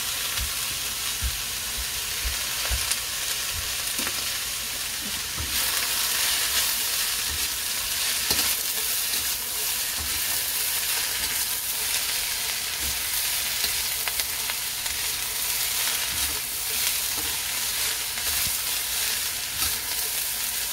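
Shredded cabbage, carrots and chayote sizzling in a hot wok while a spatula stirs and tosses them, with scrapes and light knocks of the spatula against the pan. The sizzle grows louder about five seconds in.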